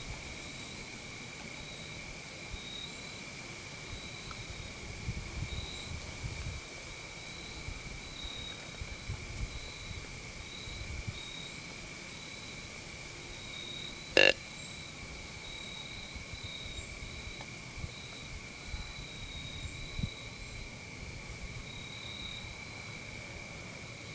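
Steady chorus of crickets and other insects: a continuous high trill with a pulsing chirp above it. One sharp click about halfway through, and a few faint low bumps.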